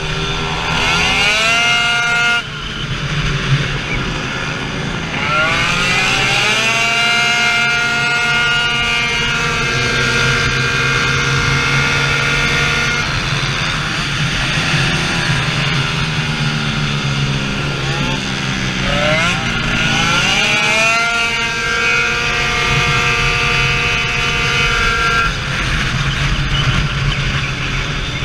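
Tuned 70cc two-stroke Minarelli scooter engine (2Fast cylinder, HK expansion exhaust) at racing revs, its pitch climbing in long rising sweeps and holding high. The pitch drops off sharply at lift-off several times, first about two seconds in, before climbing again.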